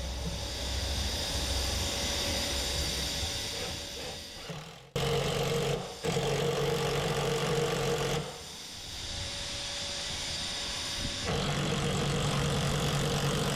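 Power drill running under load as a Speedbore auger bit bores into hard old jarrah timber. It runs with a steady motor hum in several stretches that start and stop abruptly.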